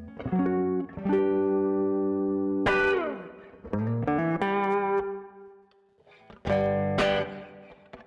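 Custom Telecaster-style electric guitar played clean through a preamp, all controls set at halfway. A quick rising run of single notes opens into a held chord; a sharply struck note about three seconds in slides down in pitch, another short run leads to a long note that fades out, and after a brief lull a new chord is strummed near the end.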